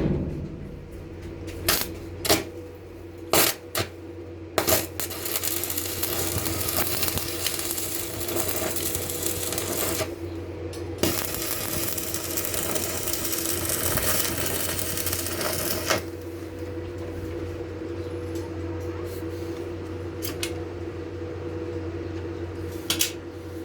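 Electric arc welding on steel: two runs of crackling, each about five seconds long, over a steady electrical hum. A few sharp metal knocks come in the first few seconds.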